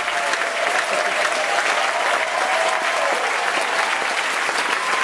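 Steady applause from a hall crowd, the choir on stage clapping along.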